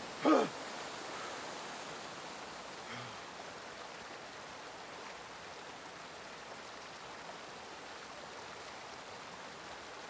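Steady rushing of a small waterfall pouring into a rock pool. A brief falling vocal sound right at the start is the loudest thing.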